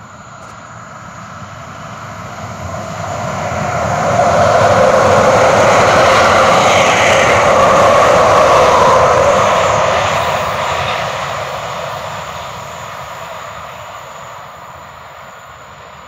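A vehicle passing by: a steady rushing noise builds over about four seconds, holds loud for several seconds, then fades away.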